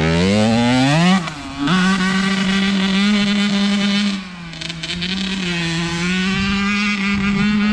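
A vehicle engine revving up hard over the first second, dropping back briefly, then running steadily at high revs, with a short easing-off about four seconds in before it holds high again.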